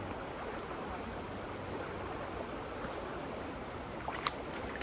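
Steady rush of flowing river water, with a couple of faint clicks about four seconds in.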